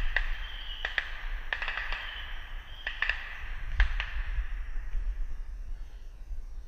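A run of sharp, irregular clicks, about seven in four seconds, over a low rumble and a faint hiss. The clicks stop about four seconds in.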